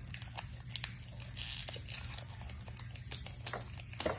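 Pokémon booster pack being handled as the cards are taken out: foil wrapper crinkling and cards rustling, with many small irregular clicks and a sharper tap near the end.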